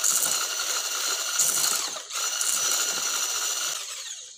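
Electric hand mixer with a wire whisk attachment running steadily, beating a creamed batter in a stainless steel pot. It dips briefly about two seconds in and switches off near the end.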